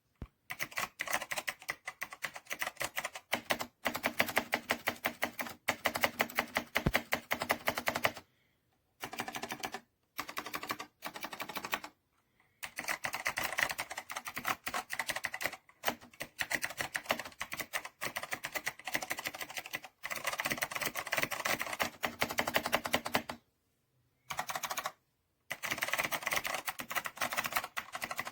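Fast typing on an 8BitDo Retro mechanical keyboard: runs of rapid key clicks lasting a few seconds each, broken by short pauses.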